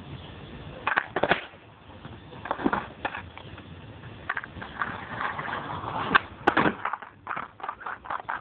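Skateboard on asphalt: the board's tail and wheels knocking against the road several times between stretches of rolling, then a loud clatter about six and a half seconds in as the board comes down on the road, followed by a run of quick light knocks.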